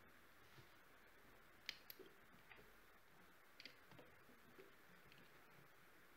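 Near silence with a few faint, scattered clicks and taps of plastic brackets and their hooks being handled and fitted around a metal cylinder. The clearest click comes a little under two seconds in, and a close pair follows near four seconds.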